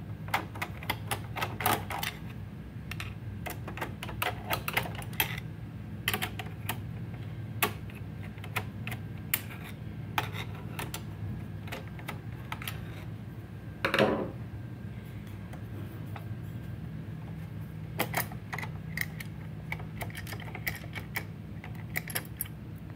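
Screwdriver clicking and ticking on screws and a steel plate as the screws are loosened inside an all-in-one PC: irregular small clicks, with one louder scrape about fourteen seconds in.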